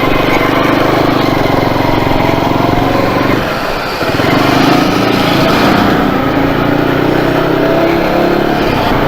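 Motorcycle engine running on the road. Its note dips briefly about three and a half seconds in, then picks up again.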